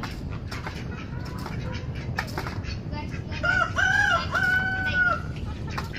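A rooster crows once about halfway through, a three-part cock-a-doodle-doo whose last note is held longest.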